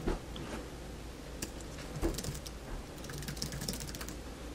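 Typing on an Apple Magic Keyboard: light, irregular key clicks that come thicker in the second half.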